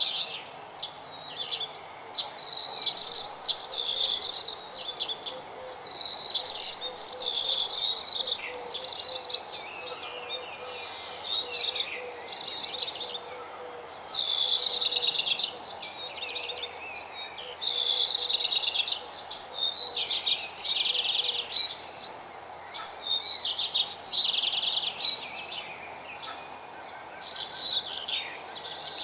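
Songbird singing, repeating a rapid, complex warbled phrase of about one and a half to two seconds every few seconds, over faint steady background noise.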